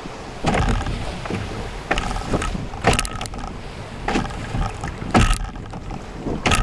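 Open canoe pushing through choppy lake waves: water slapping and splashing against the hull about once a second, the strongest hits about three and five seconds in, over a steady rush of water.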